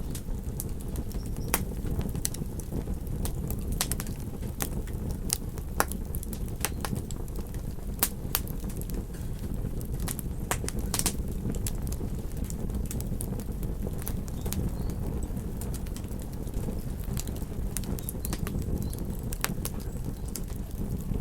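Campfire crackling, with sharp, irregular pops and snaps from the burning wood, over a steady low rumble.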